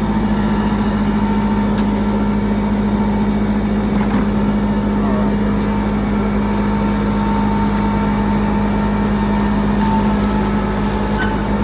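Fuel truck's engine running steadily with an even hum, driving the fuel pump. About ten seconds in, a short hiss as jet fuel begins to run from the nozzle into a plastic bucket.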